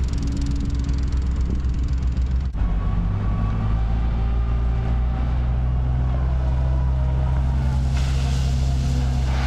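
Diesel engine of a Hyundai wheeled excavator running close by, a steady low drone. A hissing noise joins it near the end.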